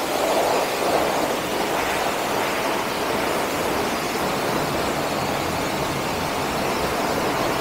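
Pressure washer jet hissing steadily as it sprays an alloy car wheel and tyre, rinsing off the degreaser that was left to soak.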